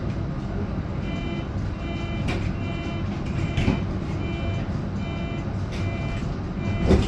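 Repeating electronic beep of a tram's door warning signal, starting about a second in and going on and off at a steady pace. It sounds over the low hum and rumble of a GT6NU low-floor tram, with a thump near the end.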